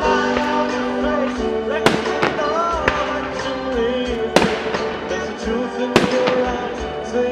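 Fireworks going off with sharp bangs, four loud ones a second or more apart and several fainter ones. Under them, a slow song with a singing voice plays over the sound system.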